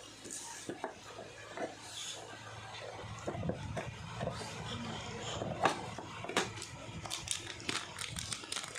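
Close handling sounds of photo card packing materials: rubbing and scraping with scattered light clicks and taps, thickest in the second half.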